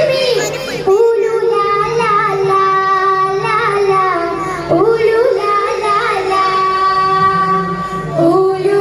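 A group of children singing an Arabic song together into stage microphones, with long held notes.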